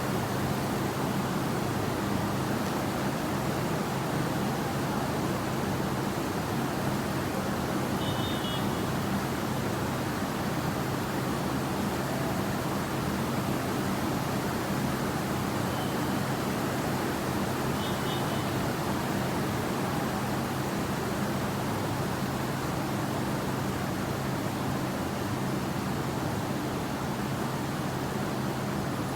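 Steady rain falling, an even, unbroken hiss and patter.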